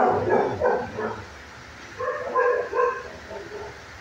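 Dog barking: a loud burst of deep barks at the start, then a quick run of short, higher-pitched barks about two seconds in.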